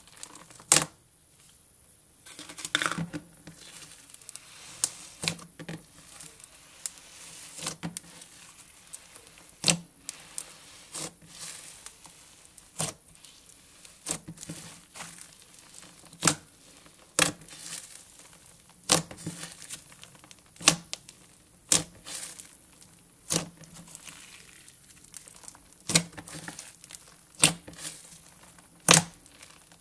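Cloud slime thickened with expanding instant snow being kneaded and stretched by hand: a soft crinkly, tearing texture with sharp pops every second or two as it is squeezed and pulled apart.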